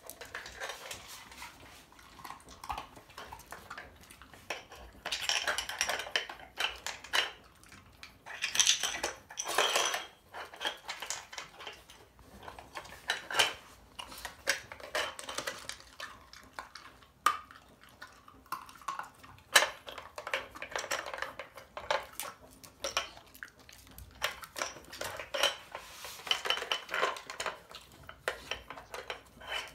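Trixie Flip & Fun plastic dog puzzle toy clattering and scraping on a tile floor as a Staffordshire bull terrier puppy noses and paws at its cups and covers: irregular spells of clicking and rattling with short pauses between.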